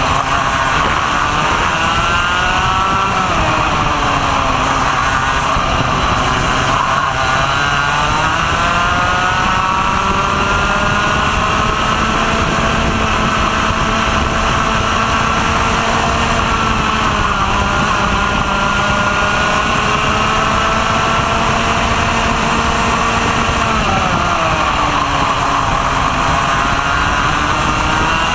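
Racing kart's two-stroke engine at full race pace, heard from on board over a steady rush of wind: the pitch falls sharply as the driver lifts for corners a few seconds in and again around eight seconds, then climbs for a long stretch down the straight before dropping for another corner near the end.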